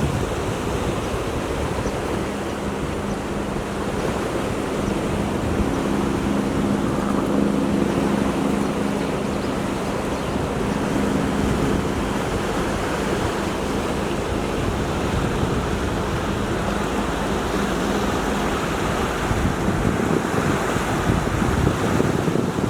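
Steady rushing outdoor noise of wind on the microphone. A faint steady low hum runs from about five to eighteen seconds in.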